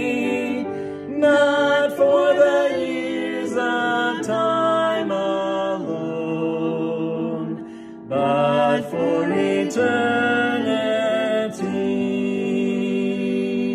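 A man and a woman singing a hymn together in long held notes, with a brief pause about eight seconds in.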